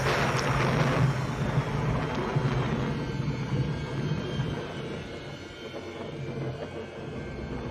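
A deep, steady rumble that slowly fades away.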